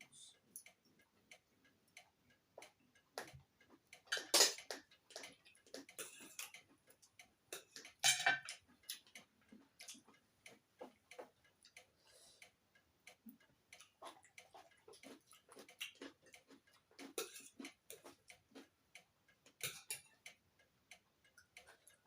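Eating sounds: a steady scatter of small irregular mouth clicks from chewing, with a few louder crunches about four, eight, seventeen and twenty seconds in, as from biting crisp vegetables.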